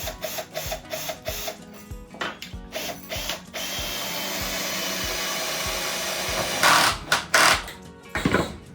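A power drill runs steadily for about three seconds, then there are a few loud knocks, all over background music with a steady beat.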